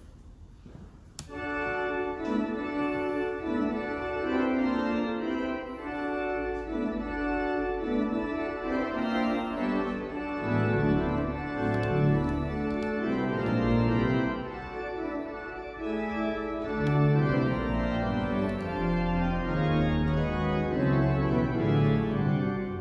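Church organ starting a voluntary about a second in, playing many-voiced chords that change every second or so. Deep bass notes join about ten seconds in.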